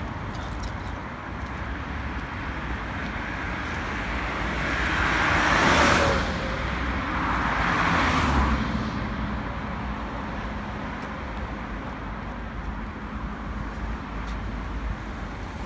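Steady road traffic noise, with two vehicles passing close by: the first peaks about six seconds in and the second about two seconds later.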